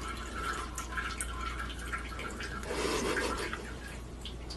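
A cat urinating into toilet bowl water from the seat rim: a faint trickle with small drips, over a steady low hum.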